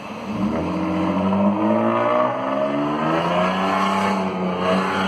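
Nissan Altima 3.5-litre V6 with the muffler deleted and the factory catalytic converters kept, accelerating hard, its loud exhaust note rising in pitch and then rising again about three seconds in.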